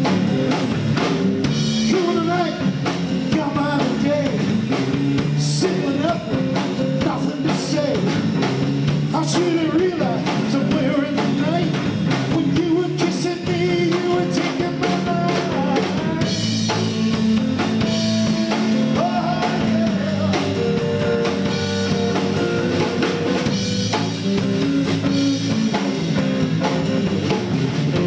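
Live blues band playing: electric guitars and bass guitar over a drum kit, with a male singer singing into a microphone.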